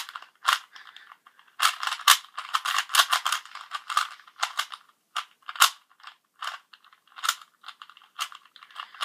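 Rubik's cube being twisted quickly at random, its plastic layers clicking and rattling irregularly, thickest in the middle and sparser towards the end.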